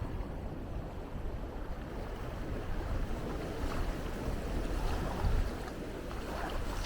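Sea surf washing steadily, with wind rumbling on the microphone.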